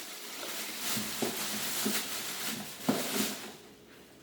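Rustling and light knocks from handling the pressure washer and its packaging, with a sharper knock about three seconds in, then it quiets down near the end.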